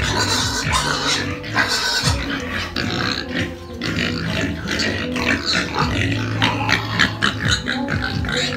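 A group of young domestic pigs grunting and calling, with music playing along.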